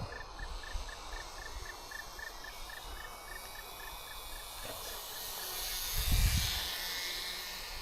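An insect, cricket-like, chirping at one pitch, about four short chirps a second, fading out about five seconds in, over a low outdoor noise. A brief low rumble comes about six seconds in.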